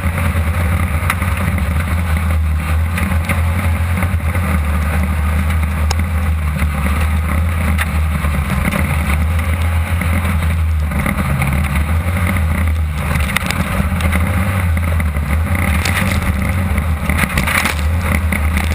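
A 1600-class off-road race buggy at speed, heard from inside the car: its engine drones steadily, with rattles and knocks throughout.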